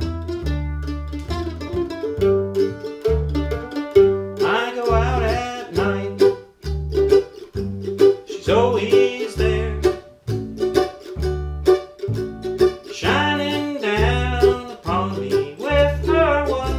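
Mandolin and upright bass playing bluegrass together: the bass plucks a steady, evenly spaced beat while the mandolin picks over it.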